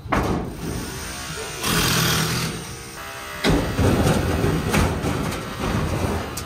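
Background music with several sudden knocks and bangs of demolition work as the panels and frame of an enclosure are pried and pulled loose.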